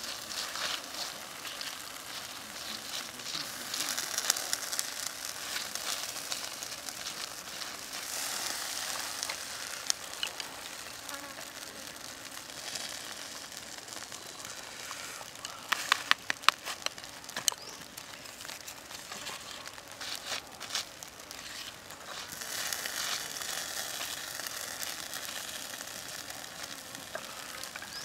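Pork leg sizzling and crackling over wood embers as it is basted with sauce, with a cluster of sharp pops a little past halfway.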